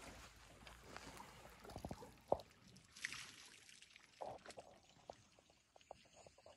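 African elephants drinking at a waterhole: faint sloshing and trickling of water at the trunk, with scattered small splashes and a sharp knock a little over two seconds in.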